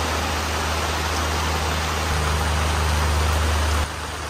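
Heavy rain pouring, a dense even hiss with a steady low rumble under it; shortly before the end the rumble drops away and the rain sounds a little quieter.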